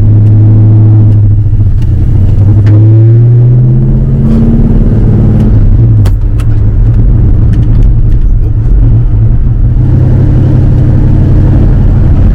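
1971 Ford Torino GT's small-block V8 running under way, its pitch rising as the car accelerates over the first few seconds, dropping suddenly about five and a half seconds in, then running steadily.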